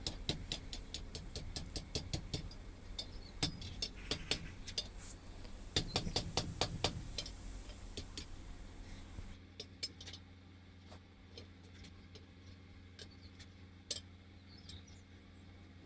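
Hammer blows on hot iron bar stock over an anvil horn, bending it round. Sharp metallic knocks come a few a second for about nine seconds, then only now and then.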